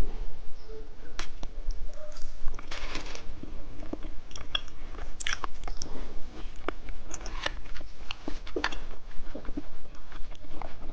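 Candy being bitten and chewed close to the microphone: irregular crunches and sticky, wet mouth clicks, several a second at times.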